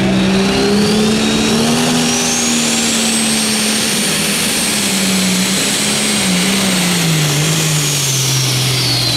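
Turbocharged diesel engine of a John Deere Pro Stock pulling tractor running hard under load, with a high turbo whistle that rises over the first few seconds. In the last few seconds the engine note and the whistle both fall as the tractor slows and bogs down, which the announcer puts down to the turbocharger going down with the water injection run out.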